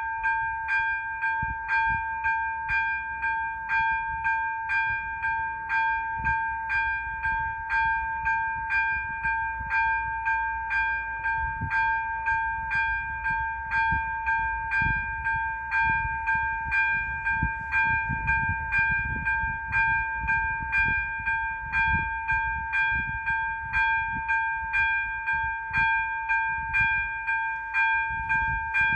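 ZV-02 electronic level-crossing bell ringing in rapid, evenly repeated strokes of the same bright tone. It is the crossing's warning that a train is approaching.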